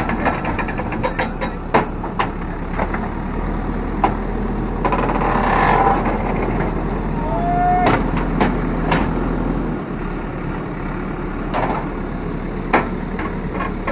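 JCB backhoe loader's diesel engine running steadily, with repeated sharp metallic clanks and knocks. A burst of hiss comes about five to six seconds in, and a short squeal near eight seconds.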